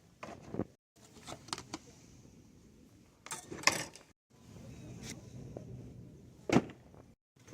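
Clicks, knocks and rustling from handling items and moving about in a store, over a low background hum, in short clips with abrupt cuts between them; the loudest knocks come about three and a half seconds in and near the end.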